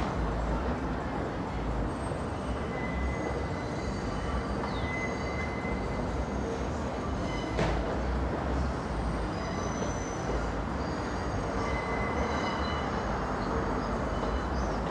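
New York City subway train rolling with a steady rumble, its wheels squealing in high thin tones that come and go. A single sharp clank sounds about halfway through.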